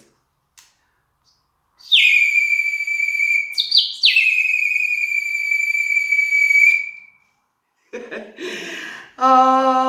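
Terracotta bird whistle filled with red wine, blown in two long notes, each starting high and dropping quickly to a steady pitch, with a short higher chirp between them; the maker finds it a bit deeper than with water. A voice follows near the end.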